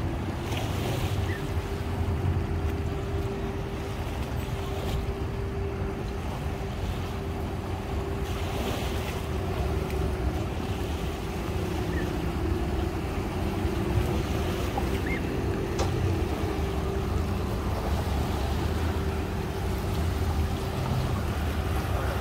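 Boat engine idling steadily, a constant hum over a low rumble, with wind buffeting the microphone.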